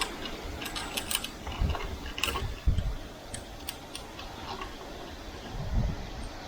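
Scattered light metallic clicks and ticks with a few dull knocks over a steady hiss, from hand work on a copper radiator during soldering.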